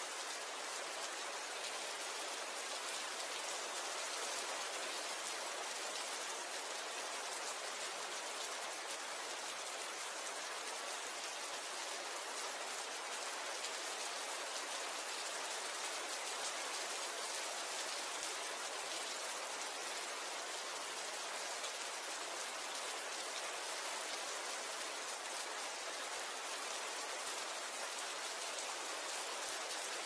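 Steady rain falling, an even hiss of drops that neither builds nor fades.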